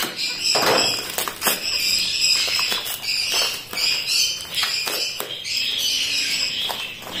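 Many small cage birds chirping and twittering together in a continuous high chatter, with scattered short clicks and rustles of things being unwrapped and handled.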